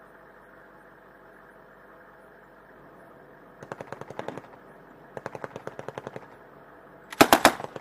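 Automatic weapons fire in rapid bursts over a steady hum: a burst about three and a half seconds in, another about five seconds in, and a much louder, closer burst about seven seconds in, trailing off into a few lighter shots.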